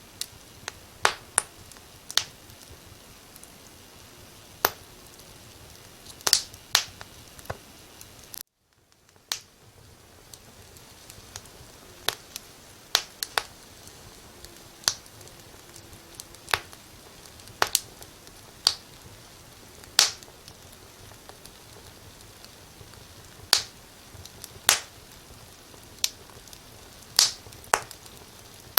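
Wood fire in a fireplace crackling, with sharp irregular pops roughly once a second over a soft steady hiss. The sound cuts out completely for about a second a third of the way through, then the hiss fades back in.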